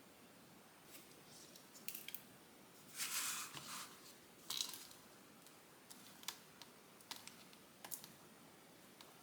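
Scattered light clicks and taps from hands handling small craft materials at a work surface, with a brief rustling scrape about three seconds in and another about four and a half seconds in.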